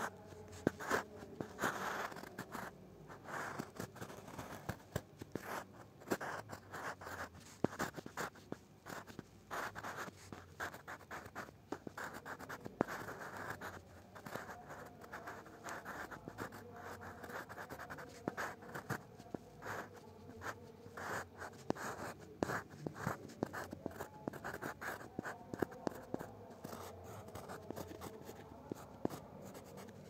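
Black ink pen nib scratching across textured paper in short strokes, with many small ticks as the nib lifts and sets down again.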